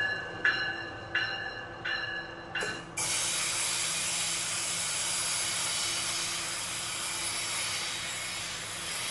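Brookville BL20GH locomotive's bell ringing, about five strokes at roughly one every two-thirds of a second. At about three seconds it is cut off abruptly by a steady rushing, hissing noise of the locomotive running.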